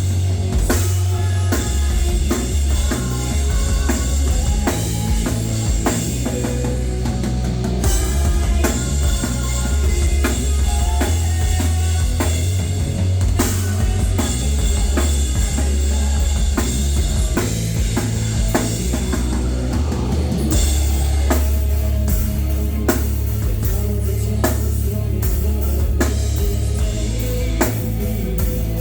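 Rock band playing live, with the drum kit to the fore, bass drum and cymbals over a heavy, steady low end.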